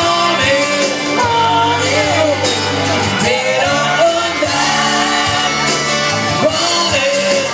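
A man singing into a microphone over instrumental music.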